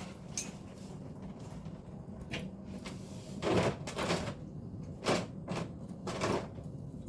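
Handling noises: several short scraping and rustling sounds, the longest lasting under a second, as a rubber plug is worked into the end of a fuel filler hose to stop spilling gasoline. A low steady hum underneath.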